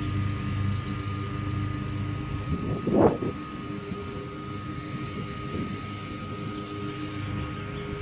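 An engine running steadily, with a brief louder surge about three seconds in whose pitch rises and falls quickly.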